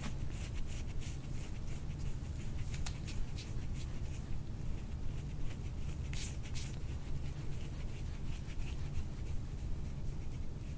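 Soft scratchy rubbing and rustling of hands and fabric in many short strokes, over a steady low hum.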